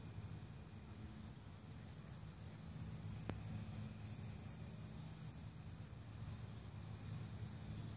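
Faint dusk chorus of crickets: a steady high trill, joined through the middle by a higher insect pulsing about three times a second. A low steady hum runs underneath, and there is a single sharp click about three seconds in.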